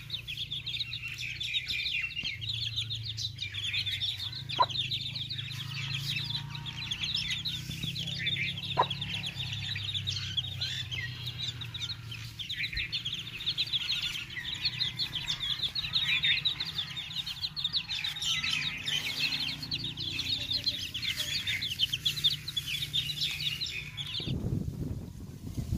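A brood of chicks peeping constantly in quick, high chirps, with a mother hen clucking. The peeping cuts off abruptly near the end.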